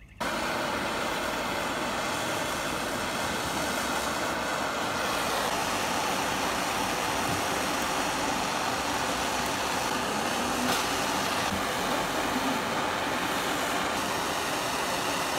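Small handheld gas torch burning with a steady hiss as its flame heats a copper pipe elbow joint for soldering.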